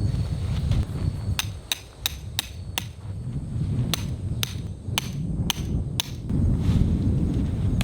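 Hammer blows, about ten sharp strikes in two runs of five with a short pause between, over wind rumbling on the microphone.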